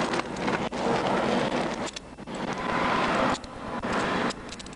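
Loud, steady rushing noise that dips briefly twice.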